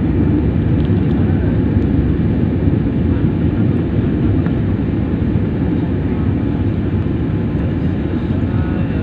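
Steady low roar of an airliner's engines and rushing air, heard from inside the passenger cabin.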